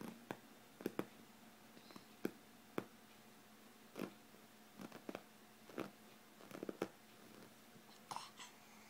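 Faint, irregular clicks and soft taps, about a dozen, from a baby handling a metal spoon on a fabric couch cushion.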